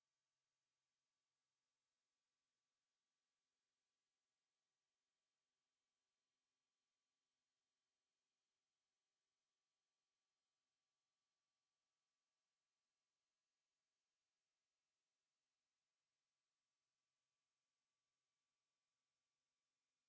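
A single steady, high-pitched pure sine tone at about 11 kHz, unchanging in pitch and loudness.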